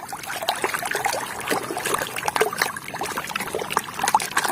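Water splashing and trickling as muddy toys are washed, a steady run of small irregular splashes and drips.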